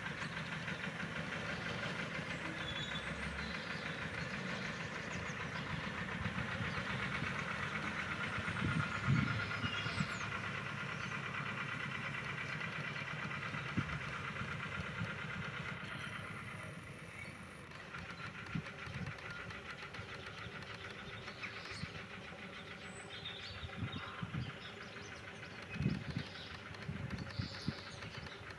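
Small Lister narrow-gauge locomotive's engine running steadily as it moves a rake of carriages, easing off and quieter about halfway through. Scattered knocks and clanks of wheels over the rail joints and points follow, loudest near the end.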